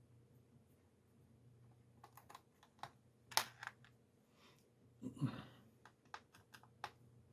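Small, sharp clicks and taps of a screwdriver and screws against a laptop's plastic bottom case, in two short clusters, with one duller knock and scrape about five seconds in.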